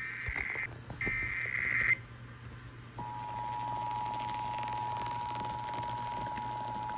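Emergency Alert System test over FM radio. First come two short bursts of the EAS digital data header. Then, about three seconds in, the steady two-tone attention signal begins.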